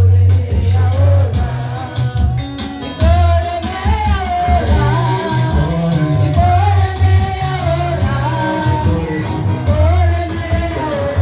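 Church worship music: a voice singing a melody over bass notes and a drum beat.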